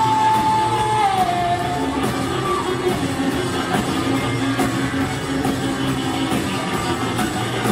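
Rock band playing loud and live in a large hall: electric guitars, bass and drums, with a voice singing. About a second in, a long high held note slides down in pitch.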